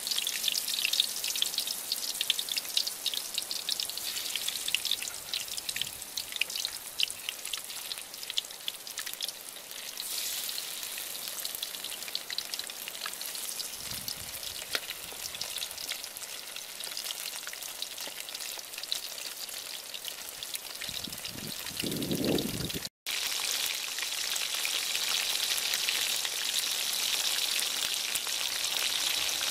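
Battered river crabs deep-frying in hot oil in a large metal wok, the oil sizzling and crackling. The crackle is thick with pops at first and settles into a steadier sizzle later, with a short low thud about two-thirds of the way through.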